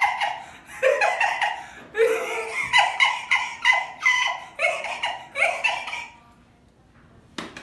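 A man's high-pitched, rapid giggling in about half a dozen short bursts, mimicking a cold scooter's self-starter cranking without catching. It stops about six seconds in, and a sharp click follows near the end.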